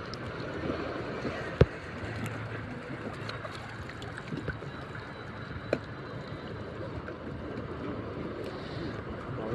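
Shallow seawater sloshing and lapping around people wading in it, with a few sharp clicks, the loudest about a second and a half in and another near six seconds.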